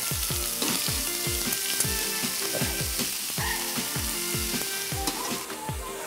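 Strips of raw pork belly sizzling on a hot steel griddle. Background music with a steady beat plays underneath.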